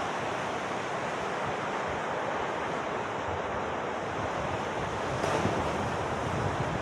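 Sea surf washing in steadily on the shore, swelling a little about five seconds in, with wind buffeting the microphone.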